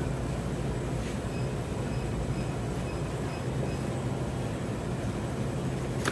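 Steady low mechanical hum from shop machinery, with faint high beeping about a second and a half in. Near the end comes one sharp knock as the butcher's knife strikes the plastic cutting board.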